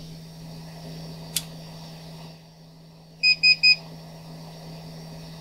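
YCS R1 Pro hot air rework station beeping three times in quick succession, over the steady hum and hiss of its hot air gun blowing. A single sharp click comes about a second in.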